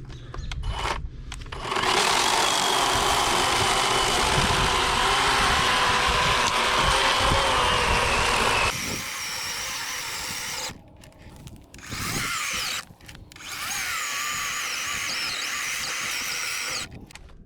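Worx WG384.9 40-volt cordless electric chainsaw with an 18-inch bar cutting through a log under load for about seven seconds, its motor whining. It then runs lighter for a couple of seconds, stops, and is triggered again in a short burst and then a run of about three seconds.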